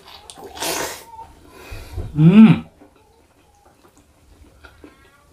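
A man eating with his mouth full of egg-stuffed intestine (tambusu). Half a second to a second in there is a hissing breath, and about two seconds in a short hummed "mmm" that rises and falls, made with lips closed while chewing.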